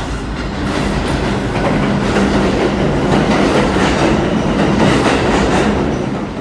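New York City subway train running on the rails, loud and steady, dropping off abruptly at the end.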